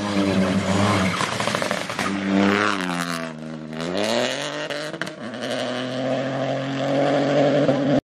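Peugeot 208 Rally 4's turbocharged three-cylinder engine running hard on a gravel rally stage, with tyre and gravel noise underneath. About three seconds in the revs fall and then climb back up as the car takes a corner.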